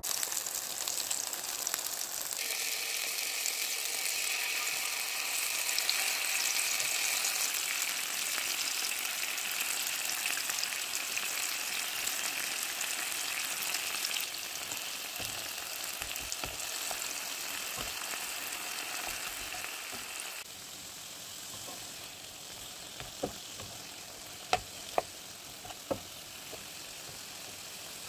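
Tomato sauce sizzling in hot oil in a nonstick frying pan. About twenty seconds in the sizzle drops quieter, and a few sharp clicks of a spatula against the pan follow as mushrooms and eggplant are stirred.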